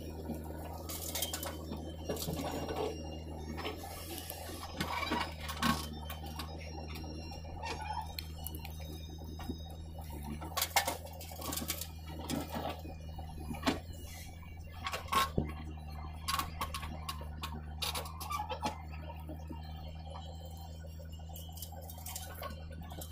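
Diesel engines of a backhoe loader and a tractor running steadily as a low hum, with scattered clatters and knocks through it as the backhoe digs and tips soil into the tractor's trolley.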